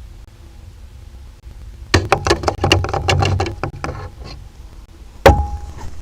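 Griffon vulture's bill knocking and pecking at the nest camera: a rapid run of sharp taps about two seconds in, lasting around two seconds, then one loud knock that rings briefly near the end.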